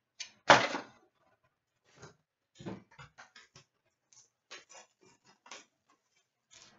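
A cardboard trading-card box being opened and its packs handled: one sharp papery crack about half a second in, then scattered light clicks and rustles of cardboard.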